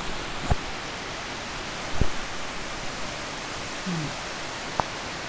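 Storm rain and wind in a steady rushing noise, broken by three sharp knocks: about half a second in, at two seconds, and near the end.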